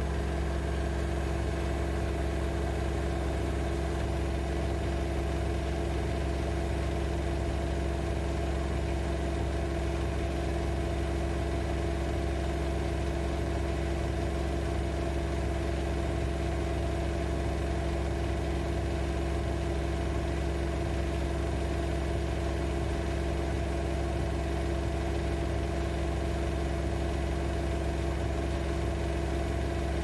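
AEG Lavamat L6FB67490 front-loading washing machine spinning at 1400 rpm, its inverter motor and drum running at a constant speed. It makes a steady low hum with a few even higher tones over it, neither rising nor falling.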